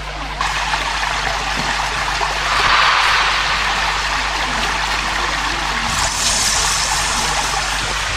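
Running water, a steady rushing that shifts in strength a few times and grows brighter about six seconds in, over a steady low hum.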